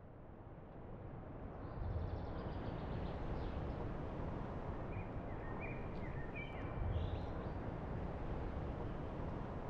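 Outdoor nature ambience fading in: a steady low rumble and hiss with a few faint bird chirps about halfway through.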